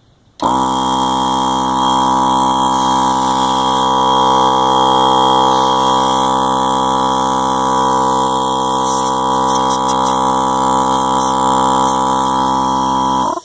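Masterflow MF-1052 12-volt portable air compressor running with no load, at a steady pitch, starting about half a second in and cutting off just before the end. It is very loud, which the owner takes as a sign of a lot more power reaching the motor through its new 8-gauge jumper-cable wiring.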